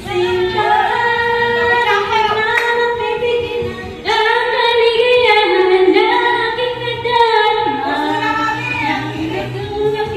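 A woman singing karaoke into a handheld microphone over music, holding long notes and sliding between pitches.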